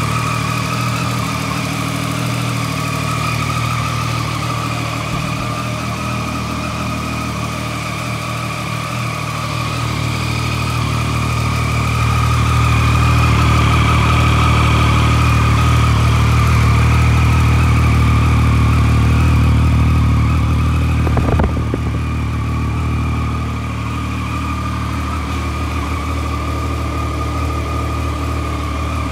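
Triumph Street Triple 675's three-cylinder engine idling steadily, louder for several seconds in the middle. A single short click about 21 seconds in.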